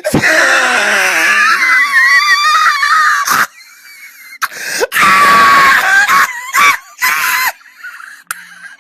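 A person's loud, high-pitched wheezing shrieks. The first bout lasts about three seconds; after a short pause come a second bout and a few shorter bursts.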